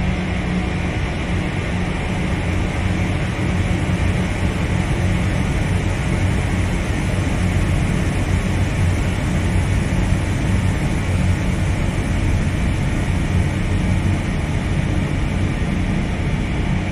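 Dark ambient drone music: a steady, dense wall of rumbling noise over a low hum, with no beat or breaks.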